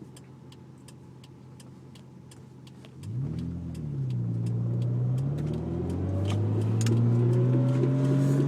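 1997 Nissan Maxima's V6 engine idling, then pulling away about three seconds in: the engine note rises, drops at a gear change, and climbs again under acceleration. A regular light ticking runs underneath.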